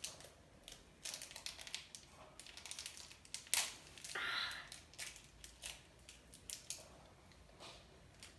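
Crinkling and rustling of a packet being handled and opened by hand, with scattered small clicks. A sharp click comes about three and a half seconds in, followed by a short rasp.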